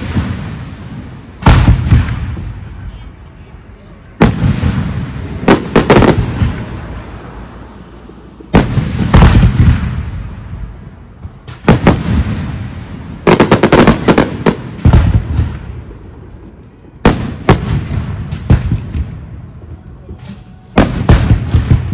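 Professional aerial fireworks display: shells bursting with loud bangs every few seconds, some single and some in quick volleys, each followed by a long rolling echo.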